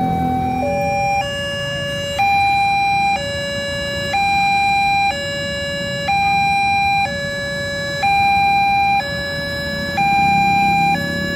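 Railway level crossing's electronic warning alarm sounding through its post-mounted loudspeaker: two steady tones alternating, a lower one and a louder higher one, each held about a second, warning that the crossing is closed to road traffic.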